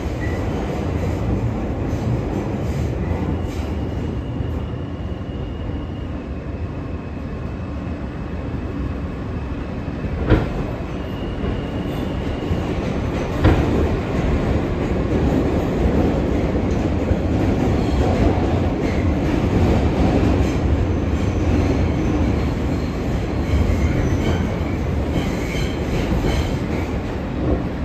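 New York City subway car running through the tunnel, heard from inside: a steady rumble of wheels on the rails, with two brief high wheel squeals and two sharp clacks from the track near the middle.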